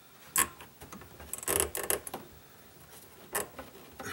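Hands working rubber fuel line and push-fit fuel line unions on a fuel pump assembly: a sharp click about half a second in, a cluster of rubbing and clicking around the middle, and another click near the end.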